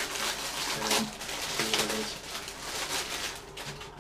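Plastic packaging crinkling and rustling as it is torn open by hand and a folded garment is worked out of it, loudest about one to two seconds in. Two brief low hums from a person come in about a second in and again shortly after.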